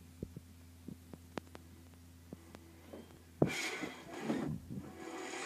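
Animated film soundtrack played from a screen and re-recorded: a steady low electrical hum with scattered faint clicks, then a sudden loud crash about three and a half seconds in, followed by two swells of dense rushing noise.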